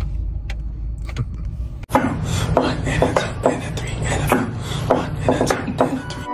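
Low, steady rumble inside a car, then a sudden cut about two seconds in to a run of sharp, irregular clicks and knocks over a low rumble.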